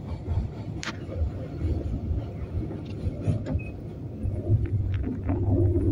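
Passenger train running, a steady low rumble heard from inside the carriage, with a few short sharp clicks and knocks scattered through it.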